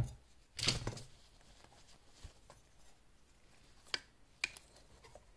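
A wristwatch with a rubber strap being handled and turned over in the hands: a soft bump at the start, a brushing rustle just under a second in, then two light sharp clicks, about half a second apart, near the end.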